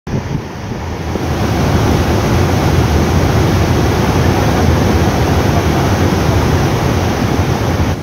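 Waterfall in flood, swollen by a cold lahar mudflow pouring over the cliff: a loud, steady rush of falling water, heaviest in the low range.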